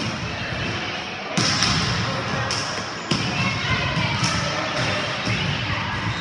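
Several sharp ball impacts, about a second apart, echoing in a large gymnasium: volleyballs being hit and bouncing on the hardwood floor, over a murmur of players' voices.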